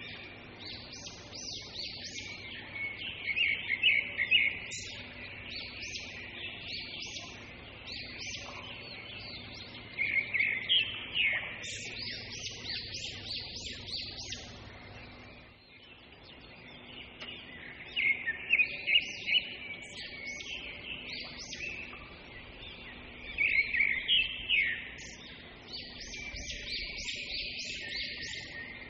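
Small birds chirping and twittering, in bursts of rapid high calls every several seconds over a faint steady hum.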